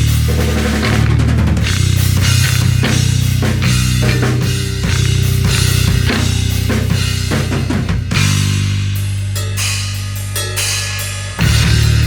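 Electric bass and rock drum kit playing together: a steady two-note bass line under a driving beat with bass drum, snare and cymbals. About two-thirds of the way through, a long held bass note rings under quick drum hits. Both drop out briefly and then come back in together.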